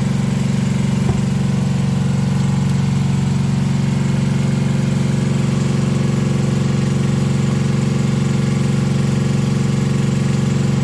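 A diesel engine running steadily, an even low hum, with a single light knock about a second in.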